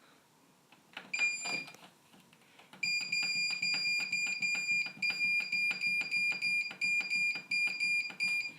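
Hotpoint Ultima WMA64S washing machine control panel beeping as its buttons are pressed: a click and one short beep about a second in, then from about three seconds in a rapid run of short beeps of one pitch with button clicks, about three a second, as the time delay is stepped up toward 20 hours.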